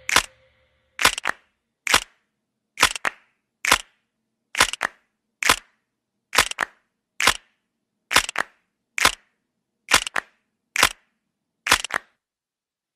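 A series of short, sharp clicks, about one a second, several followed closely by a second fainter click, with silence between them.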